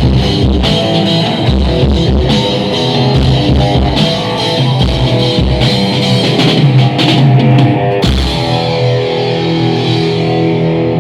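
Rock band playing at a sound check: guitar over a drum kit. The drums stop about eight seconds in, leaving held guitar notes ringing.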